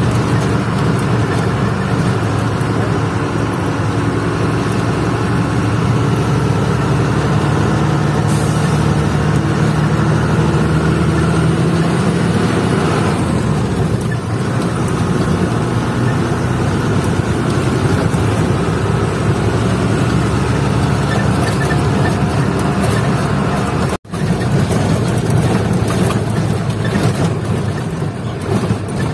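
A truck's engine running steadily while it drives, heard from inside the cab, with road noise. The sound cuts out for an instant about 24 seconds in.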